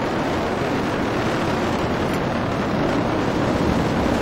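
Steady, even rumble of an Atlas V rocket's RD-180 first-stage engine at full thrust during ascent.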